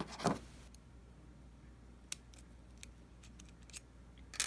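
Small sharp clicks of an iPhone 4's SIM tray being ejected and pulled out: two clicks at the start, a few faint ticks, and a louder click near the end.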